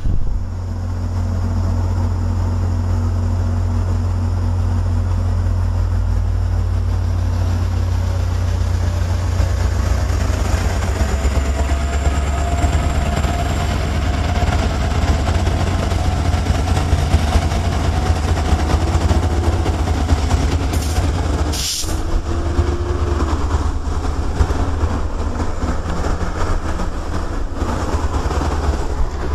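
MBTA MP36PH-3C diesel-electric locomotive passing, its EMD 16-cylinder two-stroke engine giving a deep steady rumble under the noise of the moving train. About three-quarters of the way through the sound breaks off briefly and resumes as another, similar locomotive.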